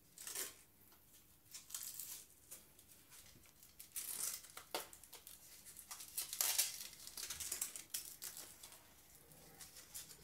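Hook-and-loop (Velcro) straps being pulled, torn open and pressed shut around a bicycle frame tube: a series of short rasping crackles, the loudest about six to seven seconds in.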